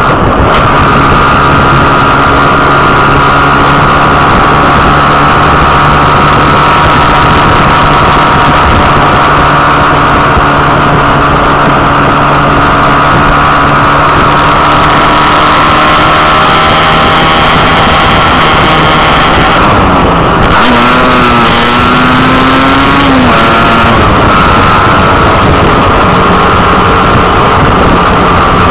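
Motorcycle engine running at a steady cruising speed under heavy wind noise on the microphone. About twenty seconds in, the engine note wavers, dips and climbs again, then settles back to a steady hum.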